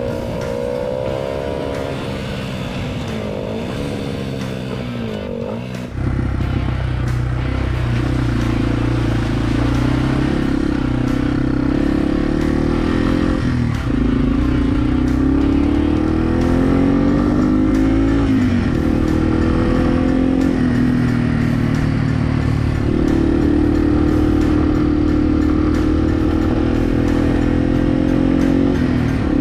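Motorcycle engine running under way, its pitch climbing and dropping back several times as it revs. It gets louder and deeper about six seconds in.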